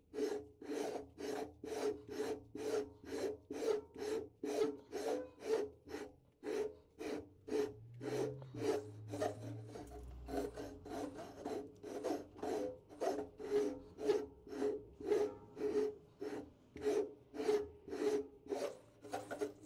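Lathe cutting tool scraping a firing-ring groove into a cast iron Mack E9 V8 exhaust manifold as the chuck is turned slowly by hand, in the last cuts to final depth. It makes short rasping strokes, about two a second, each with a ringing note.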